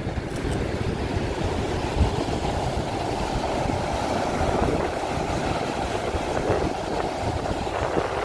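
Ocean surf breaking on a rocky shore: a steady rushing wash of waves, with wind buffeting the microphone.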